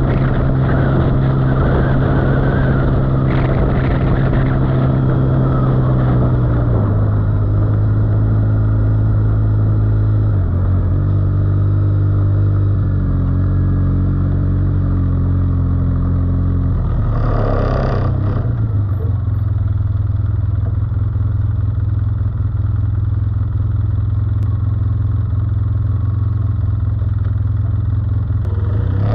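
ATV (quad bike) engine running while under way, its note stepping down after a few seconds and shifting several more times with throttle, settling to a lower, steadier note in the last third. A brief rush of noise about two-thirds of the way through.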